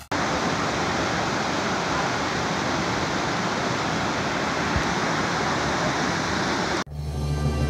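Whitewater of a river rapid rushing steadily over boulders. It cuts off sharply near the end, where music begins.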